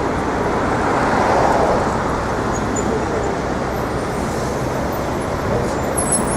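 Steady city street traffic noise: a continuous rumble of passing road vehicles.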